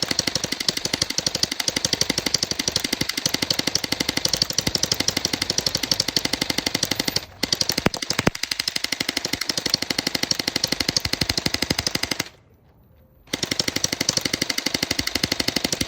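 Splat-R-Ball gel blaster firing on full auto in a fast, steady stream of shots. There is a brief break about seven seconds in, and a pause of about a second near the end.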